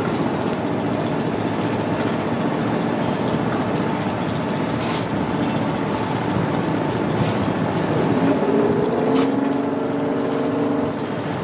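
Steady rumble and rush of a large container ship pushing through river water at its bow. A few sharp clicks come through. From about eight seconds in, a droning tone rises and then holds.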